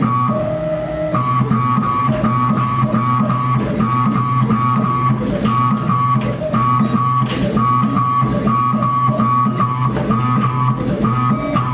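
Background instrumental music led by guitar, with bass and a steady repeating rhythm.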